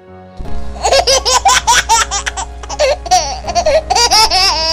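High-pitched laughter: a quick run of short bursts starting about half a second in, over a steady low hum.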